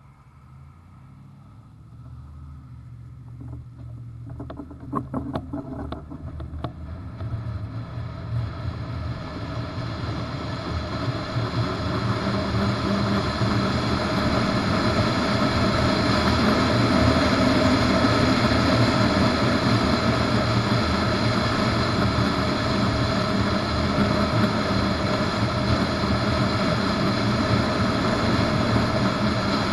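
Wind and road noise on a bass boat towed on its trailer, growing louder as the tow vehicle picks up speed, then holding steady at road speed. A few light knocks come about five seconds in.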